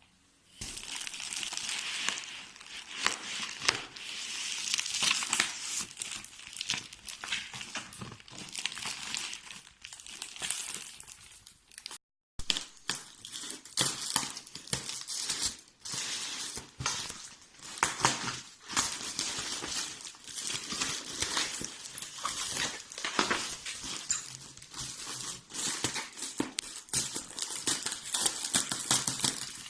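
Packaging being unwrapped and handled: continuous crinkling and crackling of wrapping material with sharp little clicks, cut off for a moment about twelve seconds in.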